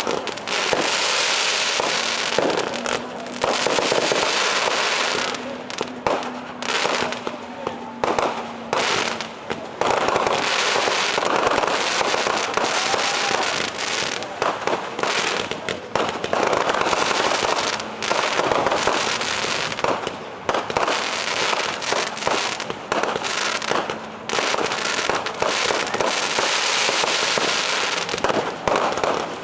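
Fireworks display: a continuous barrage of aerial shells bursting and crackling, with brief lulls between volleys.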